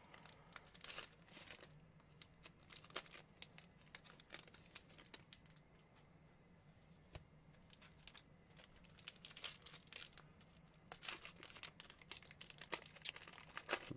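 Foil wrappers of Bowman baseball card packs being torn open and crinkled by hand, in irregular bursts, busiest near the start and again about ten to twelve seconds in, with a quieter stretch in between.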